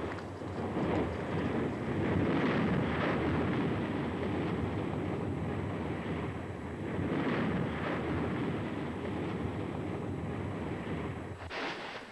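Volcanic eruption: a steady, noisy rumble from a crater blasting out ash and gas. It swells about two seconds in and again about seven seconds in, then fades just before the end.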